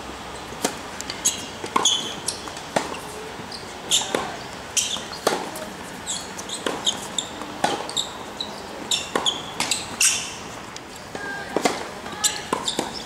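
Tennis ball being served and rallied on a hard court: sharp pops of rackets striking the ball and the ball bouncing, more than a dozen of them at irregular spacing, with short high squeaks in between.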